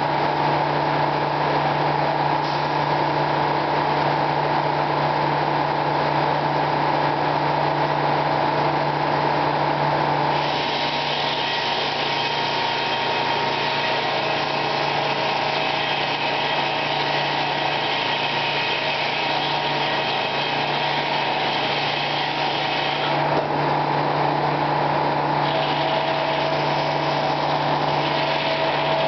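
Sawmill machinery running with a steady hum from a large circular head saw. About a third of the way in a harsher, brighter noise joins as the blade cuts through a log, drops away briefly near the end and then starts again.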